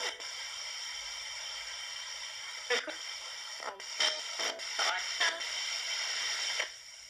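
Ghost box: a RadioShack 20-125 portable radio sweeping across the band, played through a Marshall MS-2R mini amplifier. Steady static hiss broken by short snatches of broadcast voices and music, several in a row in the middle, the static dropping away near the end.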